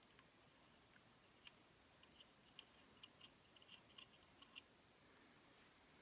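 Near silence with a scatter of faint small clicks, mostly in the middle: a small Allen bolt being turned out of a shotgun's scout rail mount by hand.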